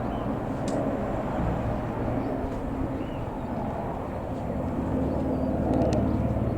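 Eurocopter AS355 F2 twin-engine helicopter running, a steady low rumble of rotor and turbines that swells slightly about five seconds in.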